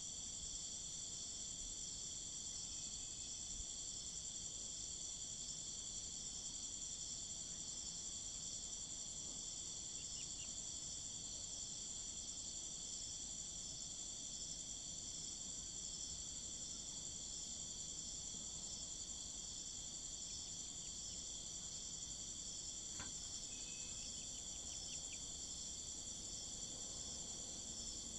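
Crickets chirring in a steady, continuous high-pitched chorus that does not let up.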